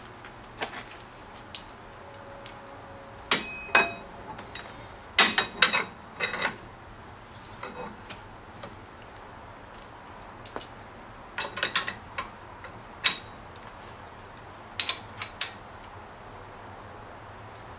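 Steel hitch parts on a John Deere 110 TLB's three-point hitch clinking and knocking as pins, clips and a lift link are handled and fitted. The sharp metal clinks come one by one at irregular intervals.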